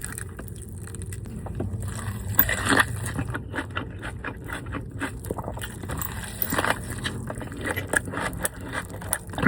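Close-up crinkling, scraping and small clicks from handling fast food and its paper wrapping, with a few louder crackles about two and a half seconds in and again near seven seconds.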